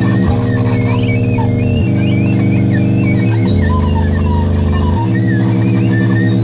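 Electronic noise music: a loud, buzzing synthesizer drone that jumps to a new pitch about every second and a half, with warbling, chirping electronic tones wavering above it.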